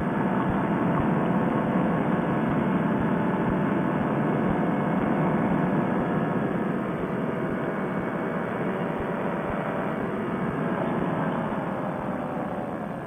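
Fresh Breeze Monster two-stroke paramotor engine and propeller running steadily at cruise power in flight, with wind rush mixed in, exhausting through a freshly repaired silencer. The engine eases off slightly near the end.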